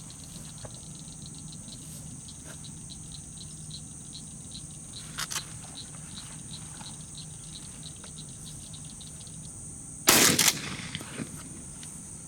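Insects chirping and buzzing steadily, with a short double pop about five seconds in. About ten seconds in comes one loud shotgun shot with a brief echo.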